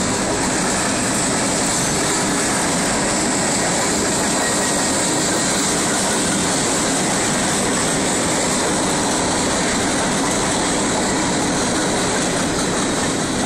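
Freight train cars (boxcars and centerbeam flatcars) rolling past at a grade crossing, a steady, unbroken noise of wheels on rails, heard from inside a car.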